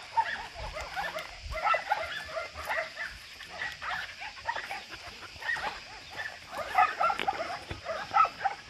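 Several dogs making short yips and barks, many brief calls one after another.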